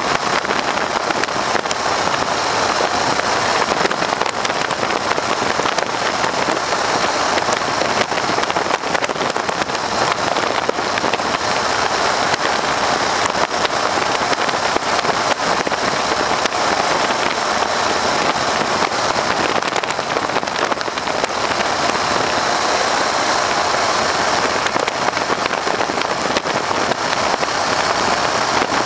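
Open-cockpit Stearman PT-13 biplane in flight: its Lycoming R-680 radial engine and propeller running steadily under a heavy, constant rush of wind on the microphone.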